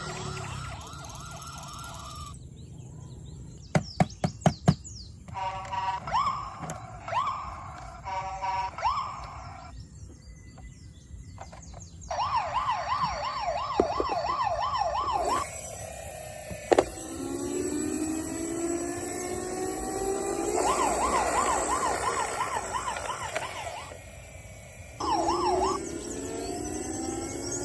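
Electronic toy siren sounds: a fast warbling yelp siren that starts and stops in several separate bursts, with slower wailing tones late on and a quick run of sharp clicks about four seconds in.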